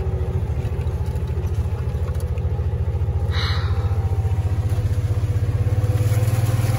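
Utility vehicle's engine running with a steady low rumble, getting louder near the end as it drives into shallow floodwater, with water splashing up at the wheel.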